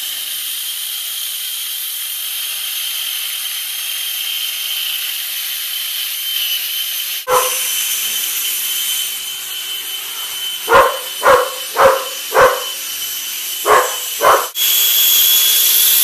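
Homemade wall-climbing RC suction car's electric fan running with a steady high-pitched whine and hiss, the suction that holds the car to the wall. About two-thirds of the way through, six short barks come in two groups, four quick ones then two.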